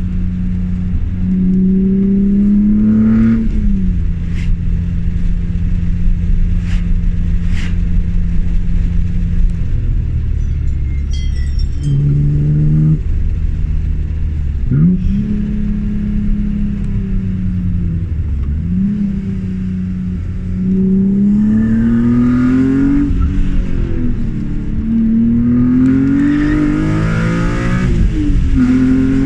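BMW E36 M3's straight-six engine under way, its pitch climbing as it accelerates through the gears and dropping back at each shift, several times, with a few steadier stretches of cruising between.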